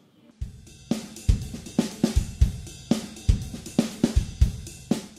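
Outro music with a drum-kit beat of regular kick, snare and cymbal hits, starting about half a second in.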